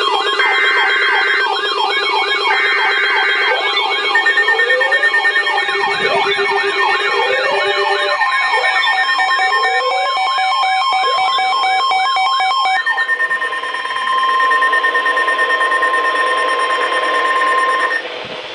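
Emergency Alert System tones from several alerts layered together: short bursts of digital header data, steady attention tones and several electronic wailing tones sweeping up and down. From about 13 s in one steady tone holds alone and cuts off near the end.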